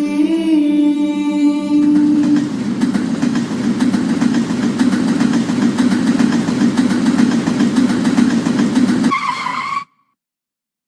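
A drawn-out "Ernieee" vocal cry with a falling pitch gives way, about two seconds in, to the steady noisy rumble of a London Underground train running. Near the end there is a brief wavering high tone, then the sound cuts off abruptly.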